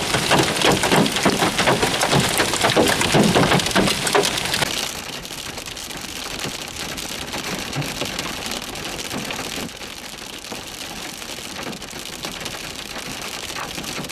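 Hail and heavy rain pelting a grassy field, a loud, dense patter of hard strikes. About five seconds in it changes to a quieter, steadier hiss of rain and hail on a moving vehicle, heard from inside while driving.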